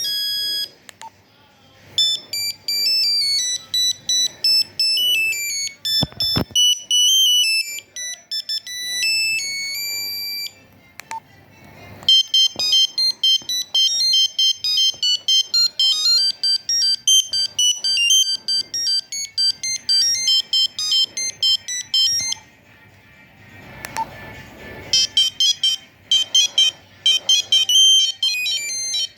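Nokia 2100 mobile phone playing its built-in monophonic ringtones one after another: beeping single-note melodies with short pauses between them, and a click or two in the gaps.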